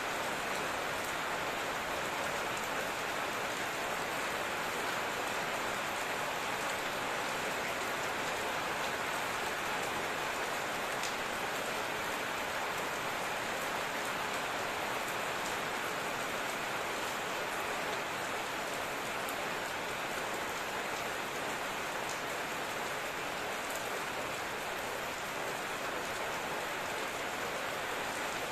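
Steady rain falling, an even hiss with scattered drops pattering on a surface.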